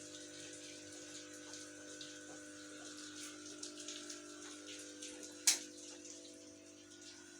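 Steady hum of several constant tones under a faint trickling crackle, with one sharp click about five and a half seconds in.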